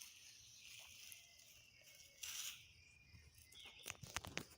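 Faint outdoor ambience with a steady high hiss. A short rustle comes about halfway through, and a quick cluster of soft clicks and scrapes comes near the end, as of plants or soil being handled.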